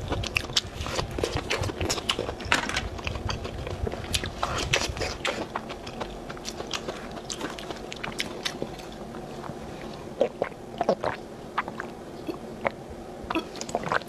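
Close-up chewing and crunching of skewered food, with wet mouth clicks; the chewing is dense in the first half and thins to scattered sharp clicks later.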